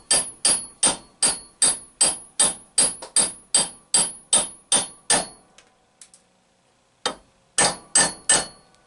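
Hammer tapping a steel bearing driver to seat a new bearing in a Delco CS-130 alternator housing: a steady run of sharp metallic taps, about two and a half a second, each ringing briefly. After a pause of about two seconds come one tap and then three more in quick succession near the end.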